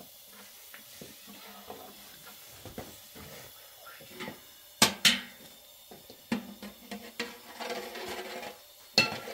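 Light taps and clicks of thin wooden rolling pins working flatbread dough on low wooden boards. Two sharp knocks come about five seconds in and another near the end.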